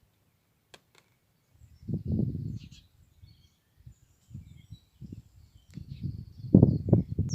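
Wind buffeting the microphone in low, uneven gusts, one about two seconds in and a stronger run near the end, with faint, short bird chirps high above it.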